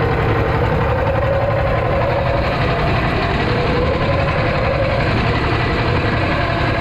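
Small fishing boat's engine running steadily at low speed, its pitch wavering slightly.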